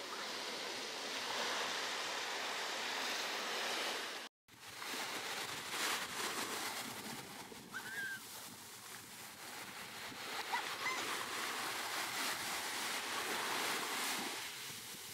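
Steady rushing noise of ocean surf and wind, broken by a brief cut to silence about four seconds in, with a few faint short chirps near the middle.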